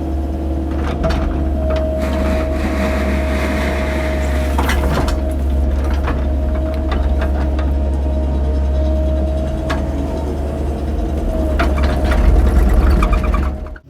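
Cat 308 mini excavator's diesel engine running steadily under load, with a steady hydraulic whine and occasional knocks of the bucket working gravel. It gets a little louder near the end, then cuts off suddenly.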